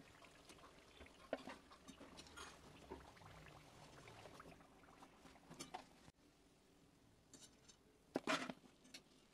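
Near silence broken by faint, scattered clicks and light taps of a kitchen utensil against the frying pan as fried chandrakala are lifted out of the oil, with a slightly louder short clatter about eight seconds in.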